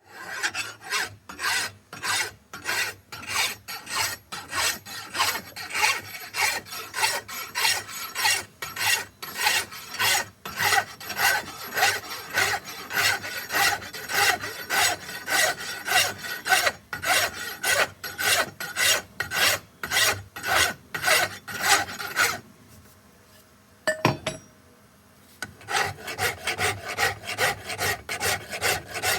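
Hand rasp filing walnut in quick back-and-forth strokes, about two to three a second. About twenty-two seconds in, the strokes stop for about three seconds, with a single sharp click in the pause, then start again.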